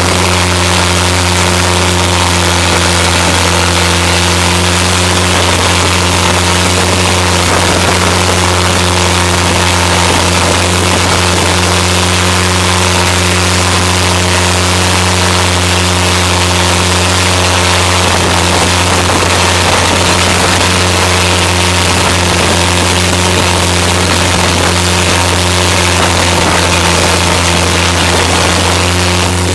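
Boat engine running steadily at speed with an even low drone, over the constant rush of spray thrown up along the hull.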